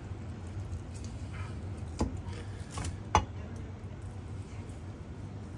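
A cleaver knocks twice on a wooden cutting board, about two seconds in and again a second later, the second knock louder, while a cooked chicken leg is cut along the bone. A steady low hum runs underneath.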